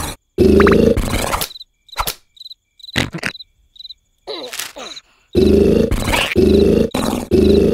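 Crickets chirping in a fast, high pulse over a night scene, with a loud throaty sound repeating about once a second at the start and again from about five seconds in. A quieter stretch in the middle holds a few sharp clicks.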